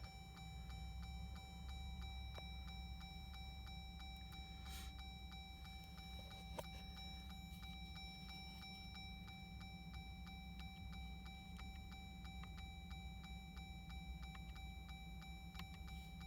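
Faint, steady, even ticking at a few ticks a second over a low hum, from the 2024 Jeep Wrangler's dashboard electronics with the ignition switched on and the engine off.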